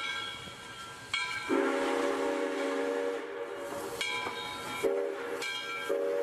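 Railway sound effects: steam-train whistles sounding in several short blasts over a steady hiss, with a long, lower, several-toned horn chord that starts about a second and a half in, stops near five seconds and sounds again about a second later.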